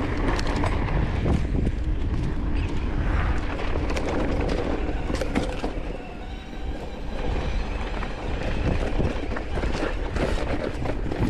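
Orbea Wild full-suspension e-mountain bike clattering over a rough rocky trail: tyres on loose rock, with constant rattling and many sharp knocks from the bike over a low rumble.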